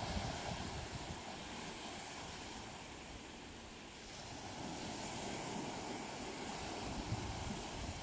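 Small sea waves breaking and washing up a sandy beach at the water's edge, a steady surf wash. It swells at the start, eases a little, then rises again from about halfway through as the next waves come in.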